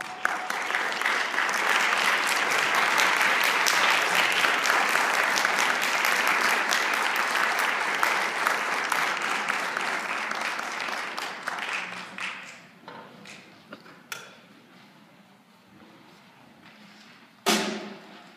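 Audience applause for a school concert band, dense clapping that starts as the band's last held note dies away and fades out about twelve to thirteen seconds in. A short, loud sound comes near the end.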